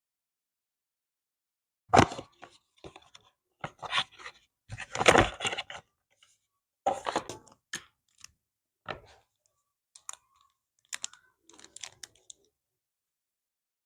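Packaging being handled and opened by hand: irregular crinkling, tearing and small clicks. They start about two seconds in and stop shortly before the end.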